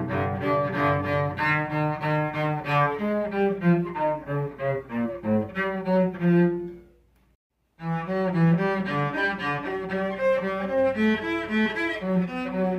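Solo cello played with the bow: a run of separate notes, then a held note that dies away a little past halfway. After a brief silence the playing starts again.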